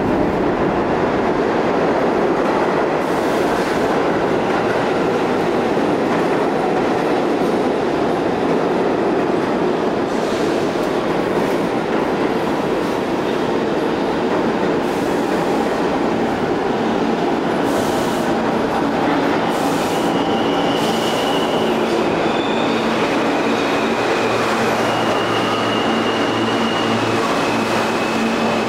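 New York City subway train pulling into an underground station and slowing to a stop: a steady rumble of steel wheels on rail with occasional clicks, and short high-pitched squeals in the second half as it slows.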